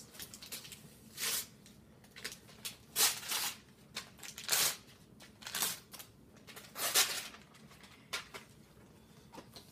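Wrapping paper being torn off a present by hand: a string of short, irregular rips, the loudest about three, four and a half, and seven seconds in.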